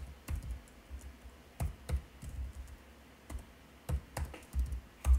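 Computer keyboard keys pressed singly at an irregular pace, about a dozen separate clicks, the loudest near the end.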